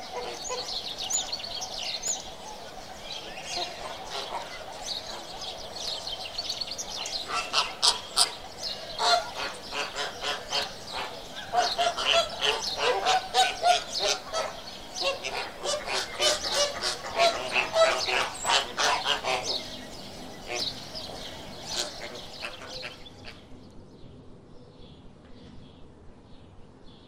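A flock of flamingos honking and gabbling with goose-like calls, many birds at once, busiest in the middle and dying away near the end to a few faint chirps.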